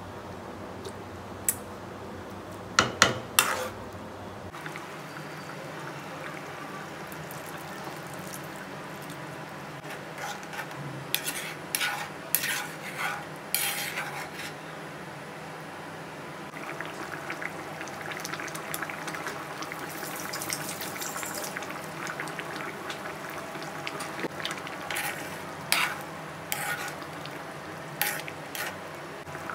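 Metal spoon stirring thick curry gravy in an aluminium kadai, clinking and scraping against the pan in several bunches of sharp clicks, over a steady simmering hiss.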